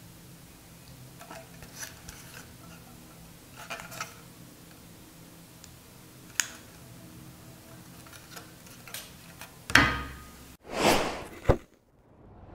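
Faint scattered taps, clicks and rubbing of a PCIe sound card with a metal bracket being handled and turned over in the hands. Near the end, two loud whoosh sound effects and a sharp click from an animated logo intro.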